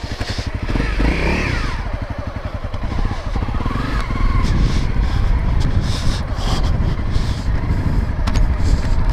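Honda CRF250L's single-cylinder engine running, its pitch rising and falling with a blip of the throttle about a second in and again around four seconds.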